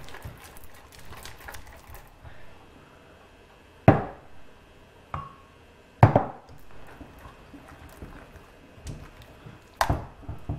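Partly activated glue slime being kneaded and gathered up from a bowl: soft sticky clicks, then three louder slaps.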